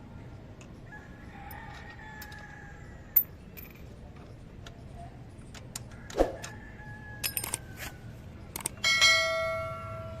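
Metal tools and parts clinking and knocking as a motorcycle rear wheel is taken apart: a few separate sharp clinks, then near the end a loud ringing metallic clang that dies away over about a second.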